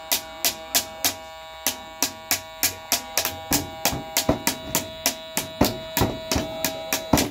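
A single note held on a small electronic keyboard sounds steadily while a stick beats out sharp taps, about three a second at first and getting quicker. The note cuts off suddenly near the end.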